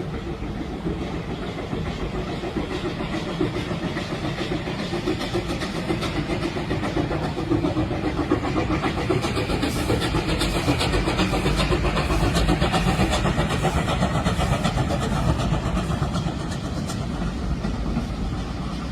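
Steam-hauled train running by, its noise building to a peak midway and then easing off.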